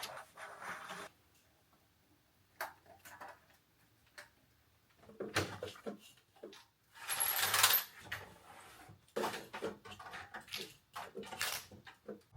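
Dishes and kitchenware being handled: scattered clinks, clicks and knocks, with a louder noisy burst lasting about a second around seven seconds in.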